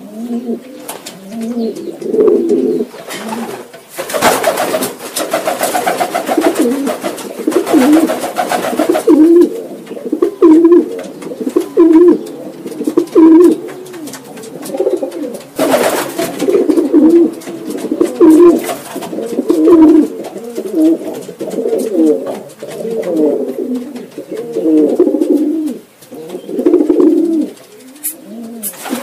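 Domestic pigeons cooing, low coos repeating over and over and overlapping one another.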